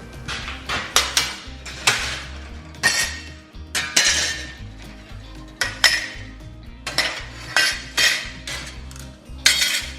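Cut pieces of steel plate clanking and clinking against each other and the bench as they are handled and laid down: many sharp metallic clanks at irregular intervals, roughly one or two a second.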